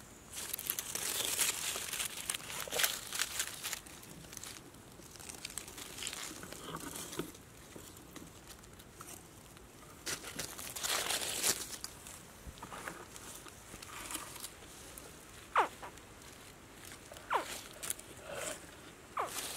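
Dry leaf litter rustling and crackling as a baby crocodile crawls through it and is handled. Near the end come three short chirps, each falling in pitch: the hatchling's distress call as it is held.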